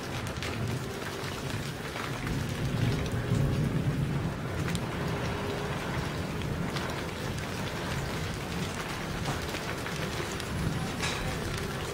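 Steady rain with scattered drop ticks, and a low rumble of thunder that swells about three seconds in and then fades back.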